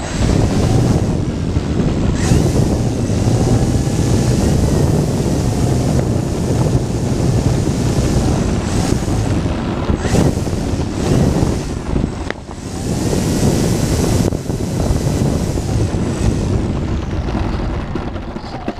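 Wind buffeting a moving camera's microphone, a continuous rushing with a heavy low rumble, broken by a few brief knocks and dips as it rolls along the pavement.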